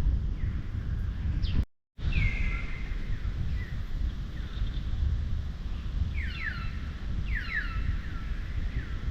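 Wind buffeting the microphone with a steady low rumble, over which short high chirping calls repeat, each sliding down in pitch, several in quick succession past the middle. The sound cuts out briefly near two seconds in.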